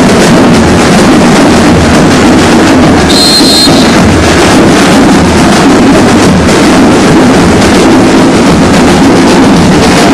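Loud, steady, distorted din of a carnival float parade, overloading the microphone, with a brief high whistle about three seconds in.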